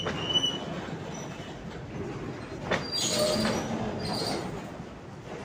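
Enclosed auto-carrier freight wagons rolling past close by: a steady rumble and rattle of wheels on the rails, with a sharp clack about two and a half seconds in. Brief high-pitched wheel squeals come near the start and again in the louder second half.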